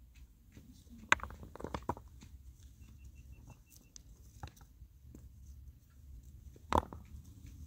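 Scattered sharp clicks and knocks, the loudest about a second in and another near the end, with a faint run of high, evenly spaced ticks in the middle.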